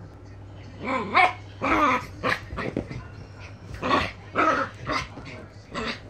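Miniature pinschers play-fighting, growling and barking in short, rapid bursts that start about a second in.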